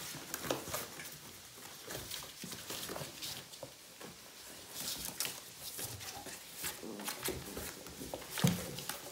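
A puppy scrabbling and rolling inside a torn cardboard box: irregular scraping, rustling and crumpling of cardboard, with one louder thump near the end.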